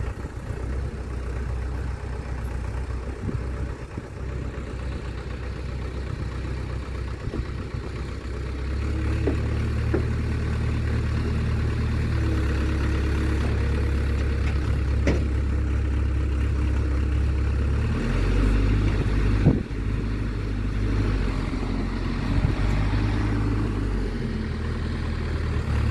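Mecalac 12MX wheeled excavator's diesel engine running steadily. It works harder from about a third of the way in as the hydraulics take load while it digs and loads soil. A few short knocks come from the bucket and soil, the sharpest about three-quarters of the way through.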